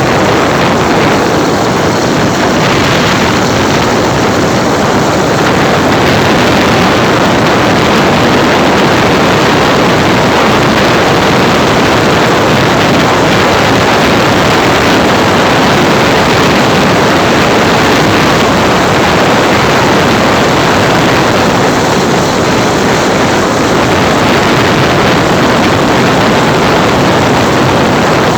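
Strong pre-storm wind rushing past the microphone, a loud, steady hiss that never lets up.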